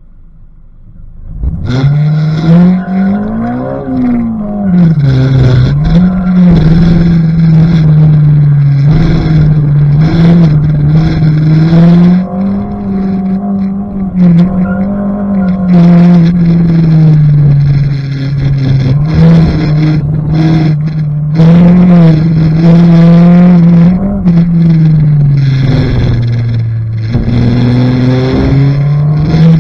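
Honda K20 four-cylinder engine in a VW GTI driven hard on an autocross course, coming in loud about a second and a half in. Its pitch climbs and falls again and again as the car accelerates, lifts and brakes through the run.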